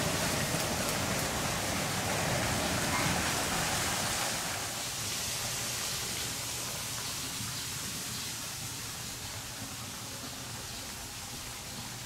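Steady rush of running water from a small stream, growing fainter after about four seconds.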